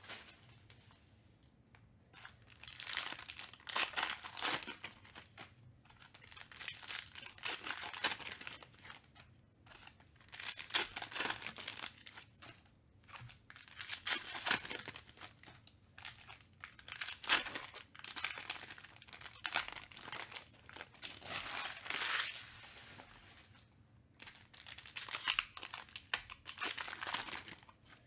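Foil wrappers of Panini Mosaic football card packs being torn open and crinkled by hand, in repeated bursts with short quiet gaps, as the cards are pulled out.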